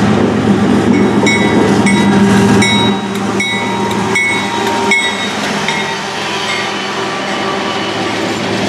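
Freight train led by Union Pacific diesel locomotives passing close by: a loud low engine rumble for the first three seconds or so, then wheels clacking over rail joints with a string of short high squeals.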